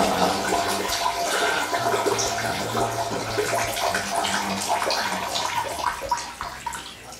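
Urinating into a toilet: a steady stream splashing into the water of the bowl, tapering off and stopping near the end.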